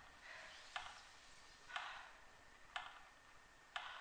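Sharp ticks evenly spaced about once a second, each with a short echo.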